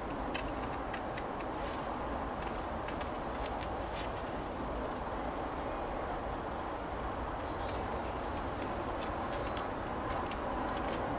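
Light clicks of scissors cutting waterslide number transfers out of their sheet, over a steady background hiss. A few short, high chirps come early on and again in the second half.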